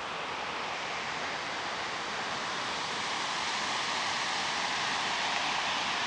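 Steady rush of water pouring over a stepped river weir, slowly getting louder.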